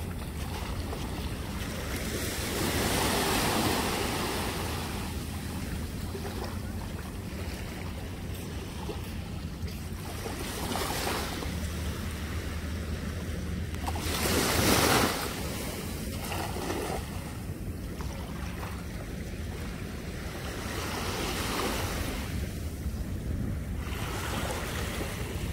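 Shallow surf washing up on a beach, with wind buffeting the microphone. Several louder rushes of water rise and fall, the strongest about two-thirds of the way through.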